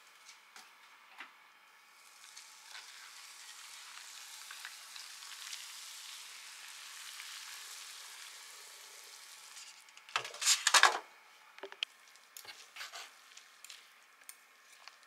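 Hot water poured into a foam cup-ramen bowl over dry noodles and seasoning powder: a steady hiss for about seven seconds that swells and fades. About ten seconds in comes a brief loud clatter, then light clicks of metal chopsticks against the bowl.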